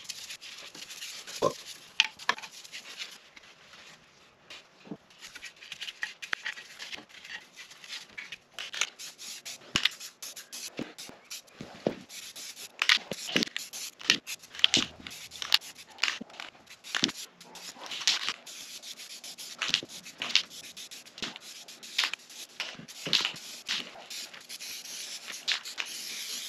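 Brush scrubbing on a metal electric-motor housing, then aerosol spray paint hissing in short bursts, among many sharp clicks and knocks from handling.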